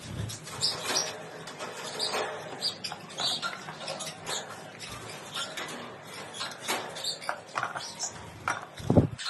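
Small pet parrots chirping and squeaking in short, high, scattered calls, with a single low thump near the end.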